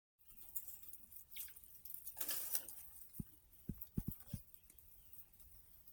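Chickens pecking and scratching: a brief rustle about two seconds in, then about five soft taps in quick succession.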